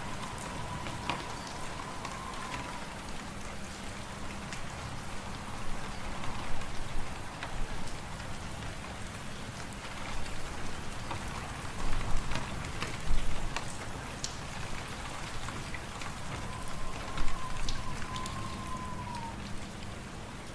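Steady hiss of a fireplace ambience, with scattered fire crackles and low swells of wind now and then. A faint wavering whistle comes near the start and again near the end.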